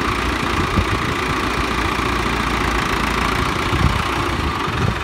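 Diesel engine of a Mahindra Arjun 555 DI tractor running steadily, with no revving.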